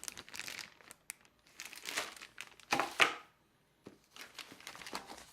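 Packaging being handled, crinkling and rustling in irregular bursts as kit parts are lifted out of the box, with the loudest crinkle about three seconds in.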